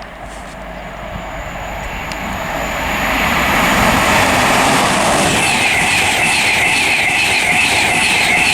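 An InterCity 225 train (a Class 91 electric locomotive with Mark 4 coaches) passing through at speed. The rush of wheels on rail builds over the first three seconds as it approaches, then holds loud and steady, with a rhythmic high ringing from the wheels starting about five seconds in.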